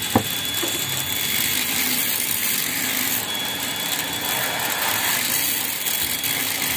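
Gas torch flame hissing steadily as it heats a two-stroke motorcycle silencer can to loosen the baffle layers inside, with one short sharp click about a quarter second in.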